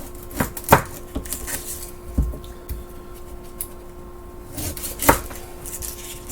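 Kitchen knife and onion knocking on a cutting board: a few scattered sharp knocks, the loudest about five seconds in, as the onion is handled and cut.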